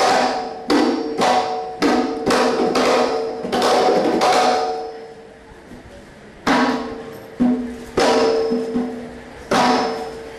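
Koodiyattam percussion accompaniment: struck drum strokes with a ringing, pitched tone. A quick run of strokes for about four and a half seconds fades into a short lull, then four separate strokes follow.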